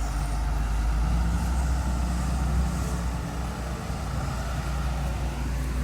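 A heavy vehicle's engine running steadily with a low rumble.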